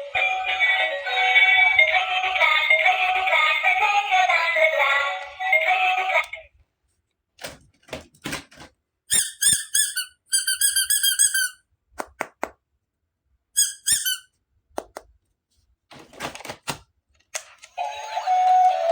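Electronic toy playing a tinny song through a small speaker, which stops about six seconds in. Then come scattered clicks and short warbling electronic chirps. Near the end the tinny song starts again.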